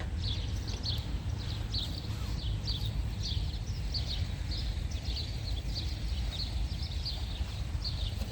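Repeated short, high chirps, about two to three a second, over a low rumble, typical of a small bird calling over and over in the garden.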